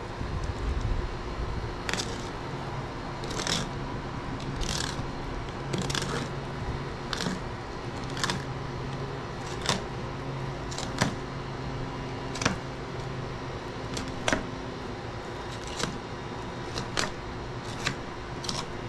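Knife strokes cutting and scraping the flesh off an alligator gar's backbone: short scrapes and clicks about once a second, irregularly spaced, over a steady low hum.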